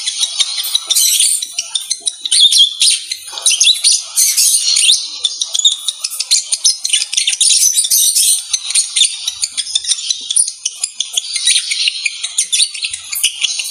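Lovebirds chattering: a dense, unbroken run of rapid, high-pitched chirps and squeaks. This is the mating chatter of a breeding pair.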